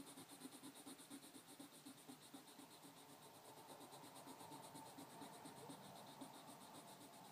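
Pencil lead shading on paper, faint and quick, in even back-and-forth strokes that fill in a solid dark area.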